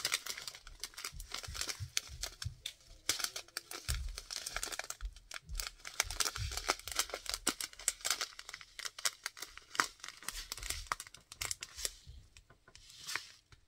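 Clear plastic bags of diamond-painting drills crinkling and crackling as they are handled, a dense run of small crackles that thins out near the end.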